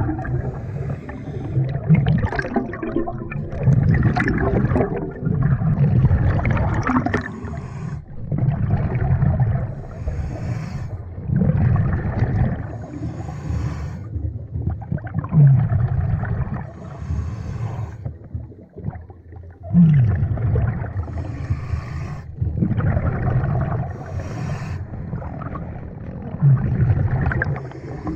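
Scuba diver breathing through a regulator underwater: a repeating cycle every few seconds of an inhale hiss and exhaled bubbles rumbling and gurgling past the microphone.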